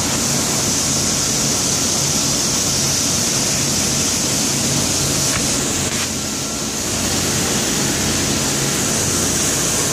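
Steady industrial plant noise: a constant high hiss over a low machinery hum, easing slightly for a moment a little past the middle.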